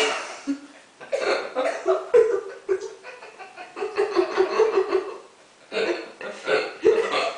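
A person's high-pitched voice, laughing and chuckling, with a short pause about two-thirds of the way through.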